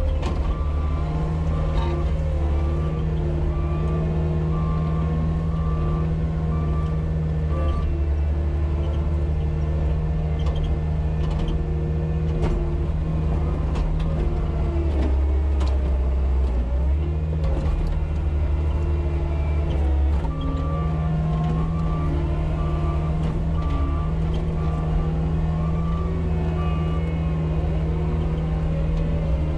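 Caterpillar 279D compact track loader's diesel engine running steadily, heard from inside the cab. Its reversing alarm beeps regularly for the first several seconds, and again for a stretch in the last third.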